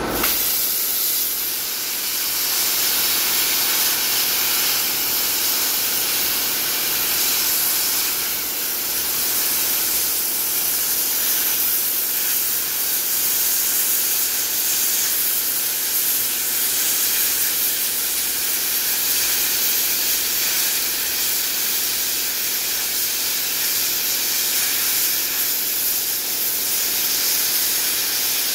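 Eastwood Versa Cut 60 amp plasma cutter cutting through a rusty steel truck frame: a steady, loud hiss of air and arc without a break.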